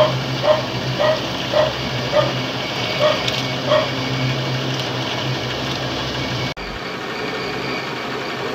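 A dog barking repeatedly, about seven barks at roughly two a second, stopping about four seconds in, over a steady machine hum.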